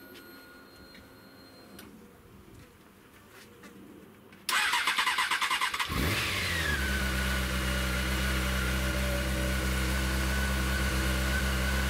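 Honda CBR600's inline-four engine: the electric starter cranks for about a second and a half, the engine catches, the revs flare briefly and it settles into a steady idle. This is the first start after a rebuilt fuel pump was fitted, and it shows the pump is delivering fuel.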